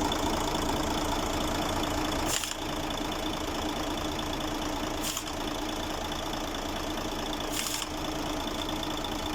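Freshly overhauled Mercedes-Benz Actros 2040 diesel engine idling steadily, with a short hiss that recurs about every two and a half seconds.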